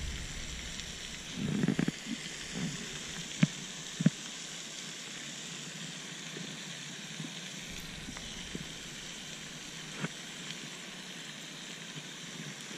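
Fishing rod, line and bobber being handled: a rustle near two seconds in and a few short, sharp clicks, over a steady outdoor hiss.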